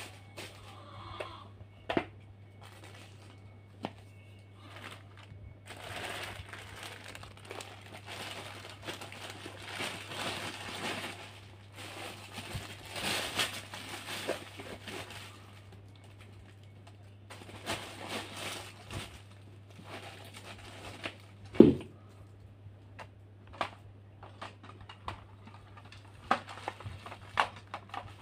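Crinkling and rustling of plastic or packaging being handled, in patches, with scattered clicks and a loud knock about two-thirds of the way through, over a steady low hum.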